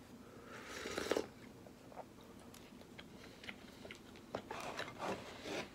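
Quiet sounds of someone eating a meal with chopsticks: chewing, light clicks of chopsticks against the bowls, and a noisy slurp from a wooden miso soup bowl about a second in, with another slurp near the end.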